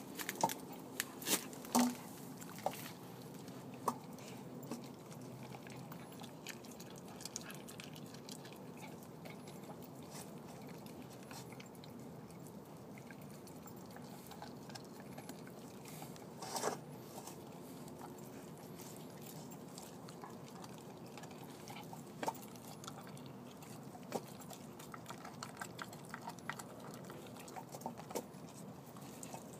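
Vizsla chewing and biting into a raw chicken thigh: scattered sharp crunches, the loudest few in the first couple of seconds and one about halfway through.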